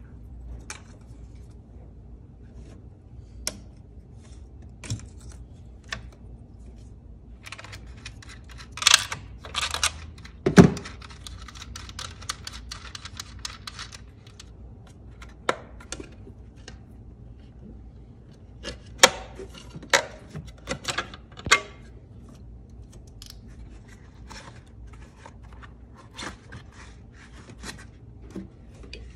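Scattered plastic clicks and snaps of hands unclipping fuel-injector electrical connectors and handling a plastic engine cover, over a low steady hum. There is a sharp louder knock about ten seconds in and a flurry of clicks around twenty seconds.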